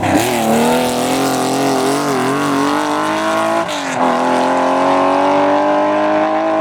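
Porsche racing car engine under hard acceleration, its pitch climbing steadily, with one upshift about three and a half seconds in where the pitch drops and then climbs again.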